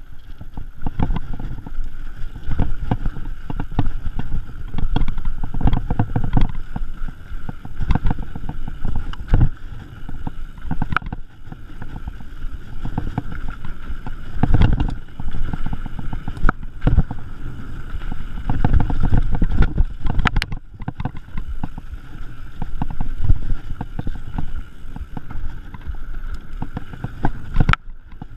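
Mountain bike ridden fast down a dirt trail, heard from a camera worn by the rider: a constant rumble of tyres and frame over the rough ground, broken by frequent rattles and knocks as the bike hits bumps and roots.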